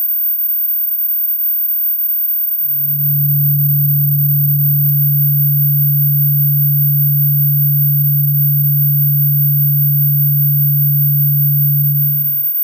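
Electronically generated dog-barking deterrent tones. A steady, very high-pitched whine sounds throughout. About two and a half seconds in, a loud, steady low hum tone joins it and cuts off just before the end.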